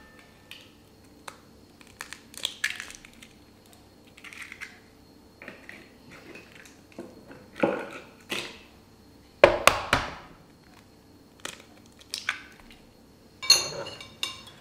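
Kitchen handling over a bamboo mixing bowl: eggshells cracking and ingredients going into the bowl, heard as a string of short, separate knocks and crackles. The sharpest come about two-thirds of the way in and near the end.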